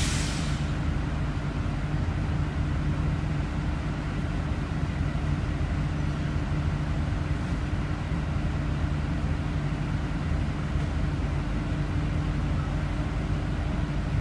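Scania Omnicity city bus's diesel engine idling steadily, heard from inside the passenger cabin while the bus stands still, with a brief hiss of air right at the start.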